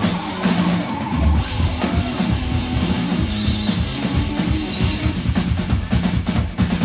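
Live rock band playing, with the drum kit to the fore: hard, fast drum and cymbal hits over bass notes, the hits growing busier in the second half.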